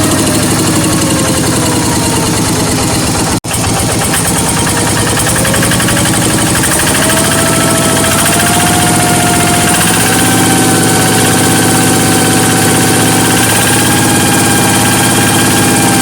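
Diesel engine of a rice-field hand tractor running steadily, with a 'hatong' whistle from its exhaust over the engine note. The whistle's pitch falls over the first few seconds, then rises and holds steady. The sound cuts out for an instant about three and a half seconds in.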